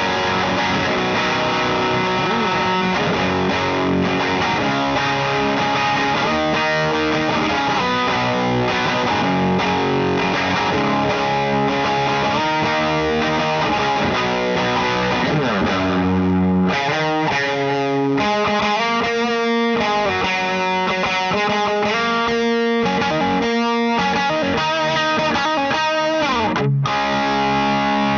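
Electric guitar played through an LPD Pedals Sixty8 Deluxe pedal into a Satellite Neutron amplifier, mic'd at the speaker cabinet, with chords and picked lines and short breaks about 17 and 27 seconds in.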